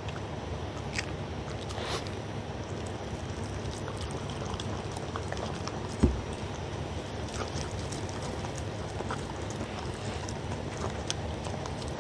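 A dog eating wet, soupy food from a bowl close to a microphone: wet lapping and chewing with small clicks, and one low thump about halfway through.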